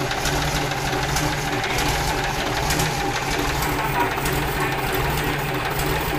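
Mitsubishi Fuso 6D22 inline-six diesel engine idling steadily on its test run after repair.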